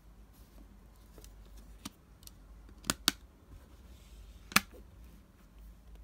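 Sharp plastic clicks from a CD jewel case being handled: one click, then a quick pair about a second later, then the loudest click about four and a half seconds in as the case is snapped shut.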